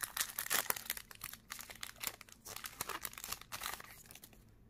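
Foil Pokémon booster pack being torn open and crinkled by hand: a fast run of crackling rustles that thins out near the end.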